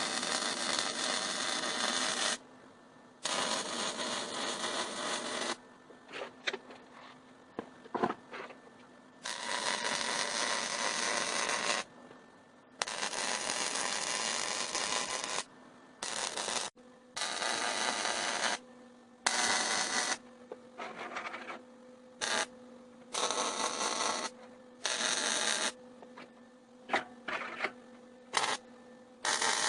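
Welding arc in repeated bursts, each lasting a second or two and cutting off abruptly, like a run of short stitch or tack welds on steel, over a steady low hum.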